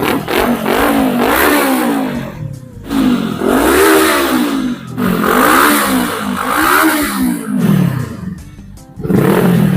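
Voge 525 DSX parallel-twin engine revved through an aftermarket Zeus carbon full exhaust system, with repeated throttle blips whose pitch rises and falls, dropping back for a moment about eight seconds in before one last rev.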